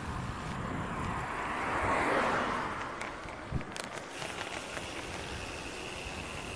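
Wind buffeting the microphone while cycling, with a vehicle passing that swells and fades about two seconds in. A faint steady high whine follows in the second half.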